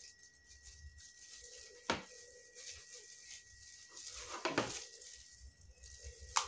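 Clear plastic bag crinkling as it is handled, with a sharp click about two seconds in and another near the end.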